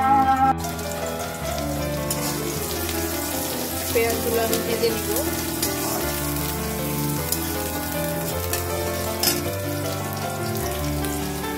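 Sliced onions and green chillies sizzling in hot oil in a metal karai while they are stirred with a plastic spatula, with a sharp tap of the spatula about nine seconds in. Soft background music plays underneath.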